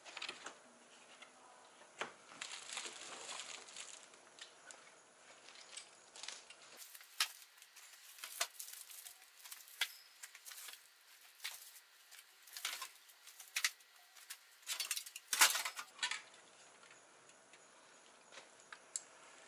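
Items being handled and lifted out of a car's boot: plastic wrapping crinkling, with scattered knocks and clinks of hard objects and metal spray cans, the loudest cluster of knocks a few seconds before the end.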